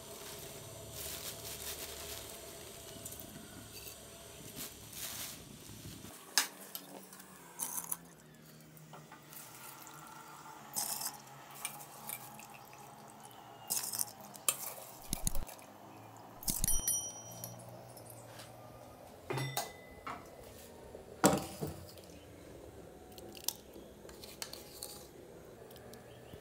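Metal spoon and pot work in a stainless steel pot of water: scattered sharp clinks and taps of metal on steel, with light splashing and dripping of water as the soaked rice goes in.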